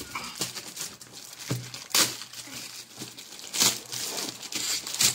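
Gift wrapping paper crinkling and being torn open by hand, with sharper rips about two seconds in and again a little past halfway.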